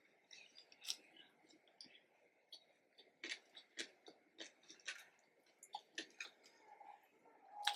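Close-miked chewing of soft fried batuk and potato pickle: faint, irregular wet mouth clicks and smacks.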